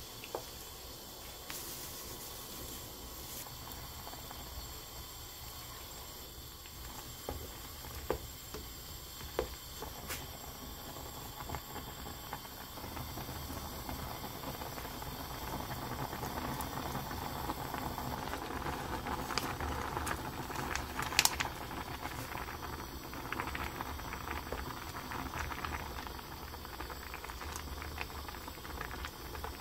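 Spicy sundubu-jjigae broth boiling in a pot, a steady bubbling that grows louder through the second half. A few sharp clicks from a spatula knocking against the pot, the loudest about two-thirds of the way in.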